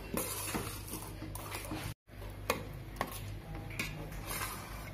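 A spoon stirring and scraping a thick, wet chana dal and jaggery filling in a metal pot, with scattered clicks of the spoon against the pot. The sound drops out briefly about two seconds in.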